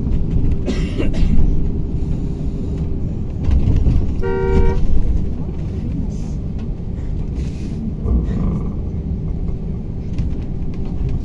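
Cabin rumble of a KamAZ-6282 electric bus rolling slowly, with a steady hum. About four seconds in a vehicle horn gives one short toot.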